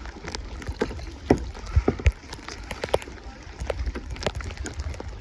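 Kayak paddling: paddle strokes in the water with scattered short knocks and splashes, the strongest a little under 2 seconds in, over a steady low rumble.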